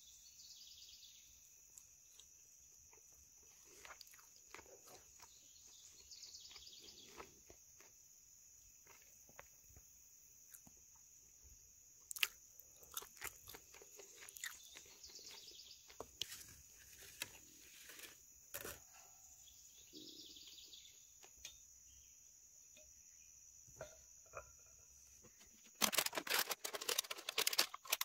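A faint, steady high-pitched chorus of crickets, with a few bird chirps over it. Scattered light clicks and taps come through the middle, and a burst of loud clattering from items being handled comes near the end.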